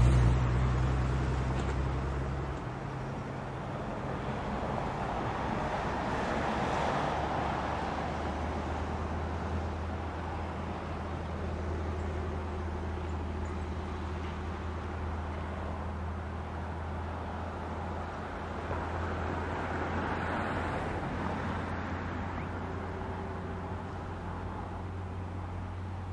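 Diesel freight locomotives idling with a steady low engine hum. The hum is louder at first and eases down about two and a half seconds in. A broad rushing noise swells and fades twice over it.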